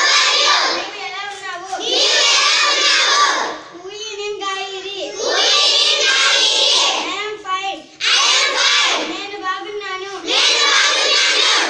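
A class of young schoolchildren chanting phrases aloud in unison in a sing-song rhythm, reciting Manipuri. Loud stretches alternate with quieter phrases every second or two.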